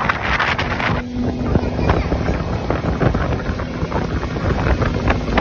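Speedboat's outboard motor running under way, a faint steady engine tone under heavy wind buffeting on the microphone, with repeated sharp knocks of the hull hitting the water.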